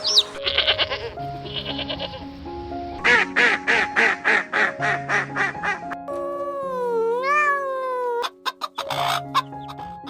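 Ducks quacking in a quick run of about ten quacks, over background music, followed by one long call that dips and rises in pitch.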